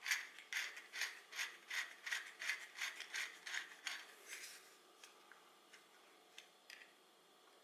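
A quick, even series of short scraping clicks, about three a second, like a small hand tool or mechanism working. It thins out after about four seconds into a few faint single clicks.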